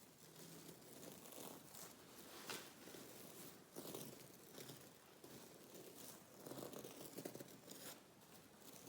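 Soft, close-miked ASMR trigger sounds: faint irregular clicks and short rustling or scratching noises, a little louder in a few spots through the middle.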